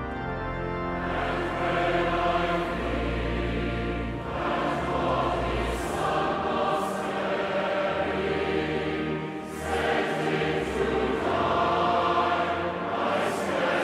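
A hymn sung by many voices to organ accompaniment, with held bass notes under the melody.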